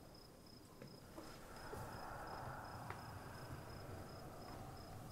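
Faint crickets chirping in a steady, evenly spaced rhythm over a low hum.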